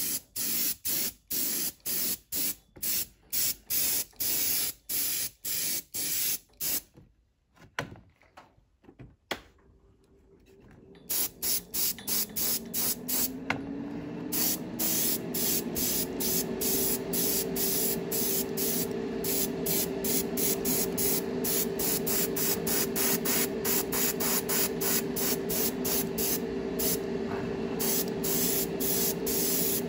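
Dual-action Iwata Neo airbrush spraying dull coat in short on-off bursts, about two a second, that stop for a few seconds and then give way to nearly continuous spraying. As the spraying resumes, a motor hum starts underneath, rising in pitch and then holding steady.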